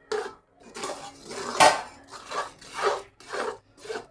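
A ladle scraping around a pan in quick, repeated strokes, about two a second, as coconut and sugar syrup are stirred nonstop so the mixture does not catch and burn on the bottom.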